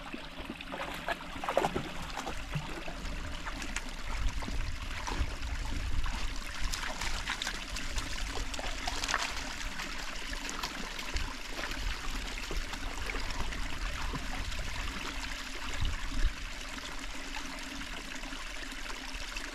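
Small hillside stream trickling and splashing over stones, a steady, fluttering water sound with a low rumble underneath.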